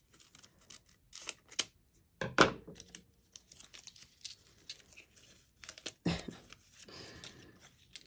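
Scissors snipping through a transfer sheet in a few short crisp cuts. A sharp knock comes about two and a half seconds in and is the loudest sound. After it, the transfer sheet crinkles and rustles as it is handled and pressed down.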